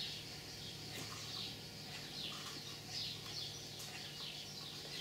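Small birds chirping, faint: short, high, downward-sliding chirps several times a second. A couple of light taps from handling a cardboard tube.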